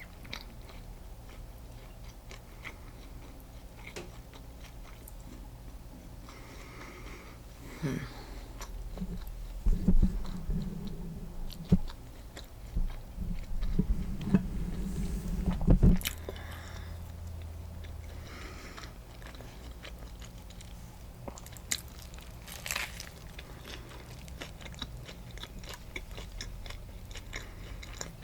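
Close-miked biting and chewing of a turkey-and-cheese sandwich on sourdough bread: small wet mouth clicks and crunches, louder and busier in the middle.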